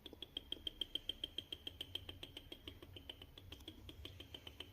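Cooking oil being poured into a hot kadhai: a fast, even run of faint little glugs or ticks, about eight or nine a second.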